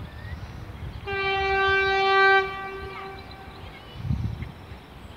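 Horn of an approaching Renfe class 253 locomotive, one steady single-note blast of about a second and a half starting about a second in, followed by a fading echo.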